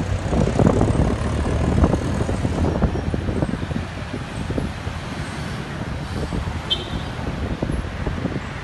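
Street traffic: motor vehicles running along a busy city road, loudest in the first two seconds as one passes close, then a steady rumble. A brief high-pitched chirp comes about two-thirds of the way through.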